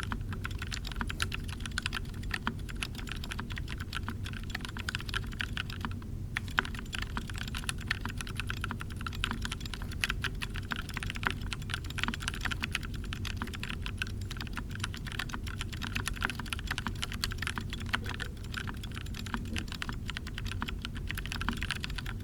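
Fast, steady typing on a mechanical keyboard with lubed 65g Purple Zealios tactile switches: quiet keystrokes, with a short pause about six seconds in, over a steady background hiss and low rumble.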